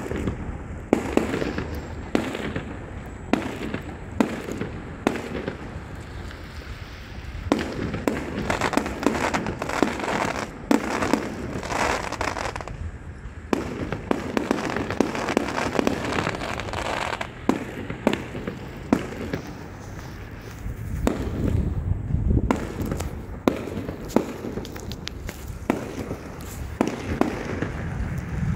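Aerial fireworks going off: a steady run of sharp bangs from bursting shells, with long stretches of dense crackling from crackling stars in between.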